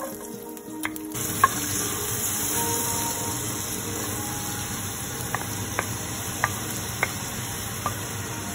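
Chopped garlic, ginger and onions sizzling as they land in the hot pork-rib drippings in a stainless steel pot. The steady frying hiss starts about a second in, with a handful of light taps from the wooden spatula scraping them off the plate.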